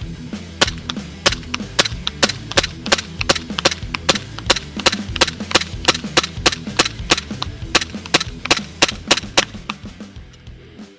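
Gas blowback airsoft Glock 17 pistol firing a steady string of sharp shots, about three a second, which stop near the end. Background music plays underneath.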